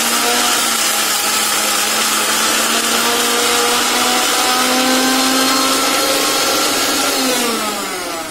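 Electric mixer-grinder with a stainless steel jar running at full speed, grinding sautéed ridge gourd peel to a coarse paste. It is switched off about seven seconds in, and its motor whine falls in pitch as it spins down.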